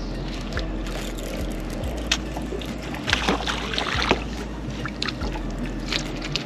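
Small fish splashing at the water's surface as it is reeled up to the boat: several short splashes and clicks over a steady low rumble.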